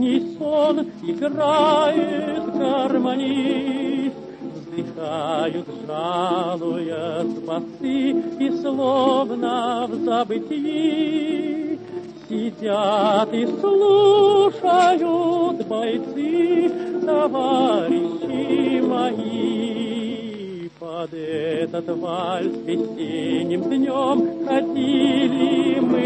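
Song with a singer using a wide vibrato over sustained instrumental accompaniment, part of a waltz song, with a brief dip in loudness between phrases about 20 seconds in.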